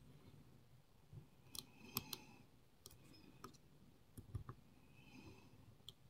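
Faint, irregular metallic clicks of a thin steel hook pick working the pins of a pin-tumbler lock cylinder under tension, setting binding pins one by one. The clicks come in small clusters about two seconds in and again about four seconds in, with a few single ticks between.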